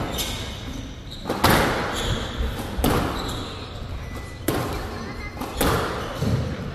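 Squash rally: the ball cracking off rackets and court walls about every second and a half, each hit echoing in a large hall.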